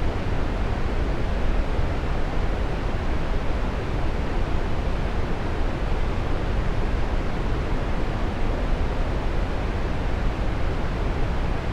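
Waterfall: a steady, even rush of falling water, deep and full, with no breaks or changes.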